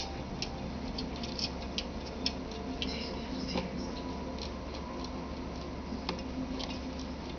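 Light, irregular clicks and taps at a computer, a few a second, over a faint steady hum.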